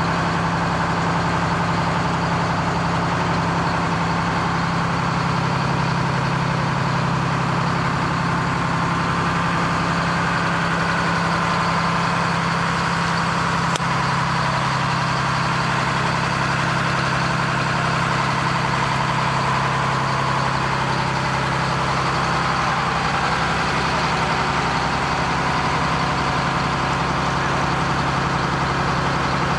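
Fire truck engine running steadily, its low drone stepping down a little in pitch about five seconds in.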